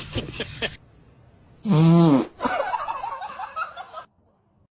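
A short, loud fart sound about two seconds in, followed by a person laughing for a second or so.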